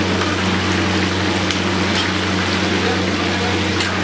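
Chicken pieces deep-frying in bubbling hot oil in a pan: a steady sizzle with a few scattered pops, over a steady low hum.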